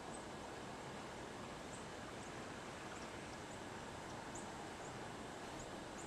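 Quiet outdoor ambience: a steady hiss with faint, short, high chirps of distant birds scattered through it, about one or two a second.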